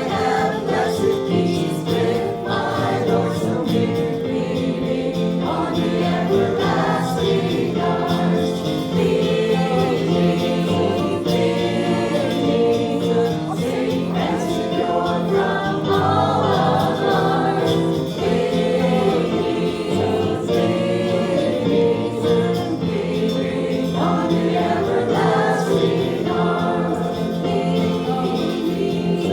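A congregation singing a hymn together.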